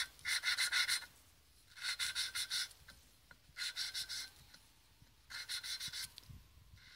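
Valve being hand-lapped into its seat in a Suzuki RMZ450 cylinder head: a suction-cup grinding stick spun back and forth between the palms, the valve face grinding against the seat in fine grinding paste. Four spells of quick rasping strokes, about a second each, with short pauses between.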